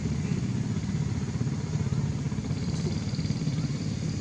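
A small engine running steadily with a rapid low pulsing, like a motorbike idling.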